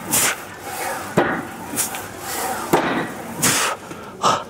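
Plate-loaded leg press being worked through repetitions: short sharp knocks and hissing breaths, about one a second, at an uneven pace.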